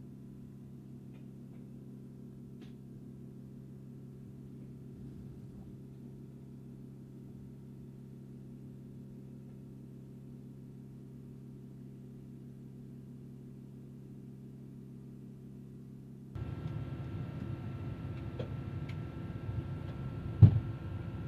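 Steady drone inside a KC-135 Stratotanker's cabin, with a few constant tones in it. It steps up louder about sixteen seconds in, and a single sharp knock comes near the end.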